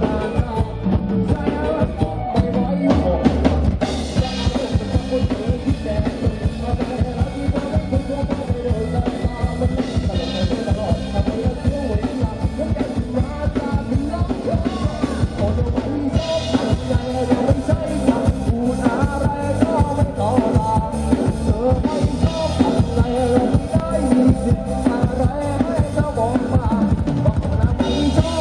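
Live band music played through a sound truck's large speaker stack: male singing over electric bass, electric guitar and keyboard, driven by a steady, even beat.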